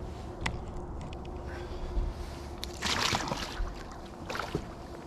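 A flathead catfish released over the side of a boat, with a splash into the river about three seconds in.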